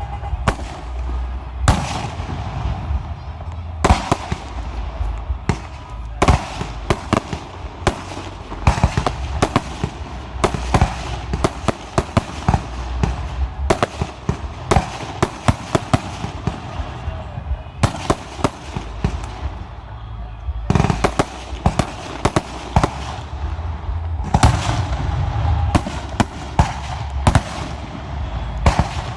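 Aerial fireworks display: shells bursting in quick, irregular succession, many sharp bangs each second over a continuous low rumble of booms.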